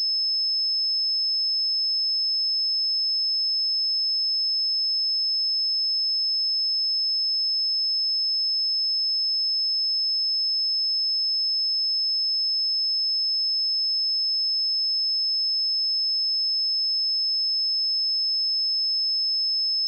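A steady, high-pitched pure sine tone at 5216 Hz, held at one pitch and level: a speaker test signal.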